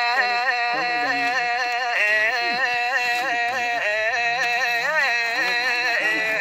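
Music: one long held melodic note that wavers slowly up and down in pitch, ending abruptly.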